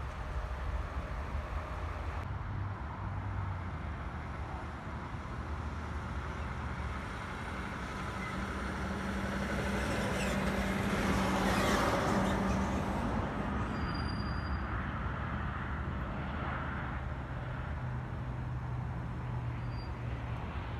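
Twin-engine jet airliner passing low on final approach: its engine noise swells to a peak about twelve seconds in, then fades. Steady road-traffic and truck-engine hum runs underneath.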